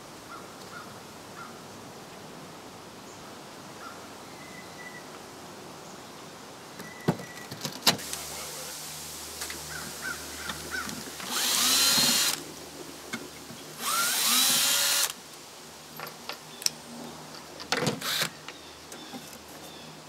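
Cordless drill driving drywall screws through a wooden furring strip into a bubble glass concrete block: two bursts of motor whine of about a second each, with a few knocks from handling before and after.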